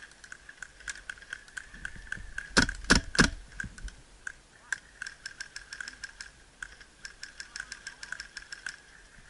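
Airsoft skirmish gunfire: a scatter of sharp ticks and clicks from shots and BB hits around the field, with three much louder cracks close by about two and a half to three and a half seconds in.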